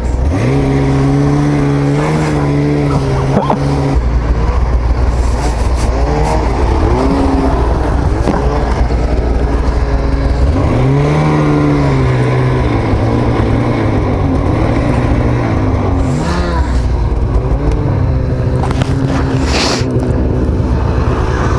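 Snowmobile engine being ridden, its pitch climbing and dropping back several times as the throttle is worked, with brief bursts of hiss in the last few seconds.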